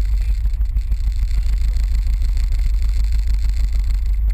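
Inboard engine of a snekke, a small Norwegian open motorboat, running steadily at low speed, heard as a deep continuous rumble.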